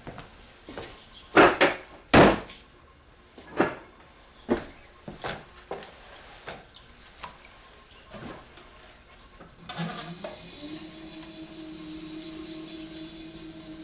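A string of knocks and thuds, the loudest three close together about a second and a half in. Near the end an electric potter's wheel motor starts up, its hum rising briefly in pitch and then holding as a steady whine.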